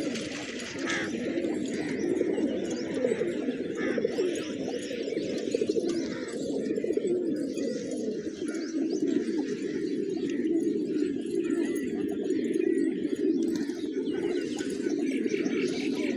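A flock of pigeons cooing continuously, many low throbbing coos overlapping.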